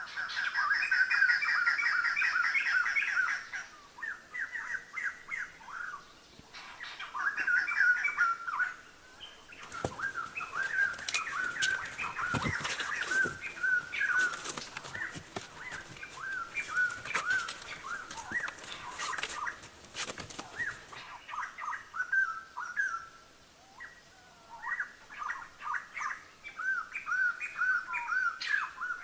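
Small birds chirping in quick repeated calls, with a run of sharp clicks and knocks from about ten to twenty seconds in.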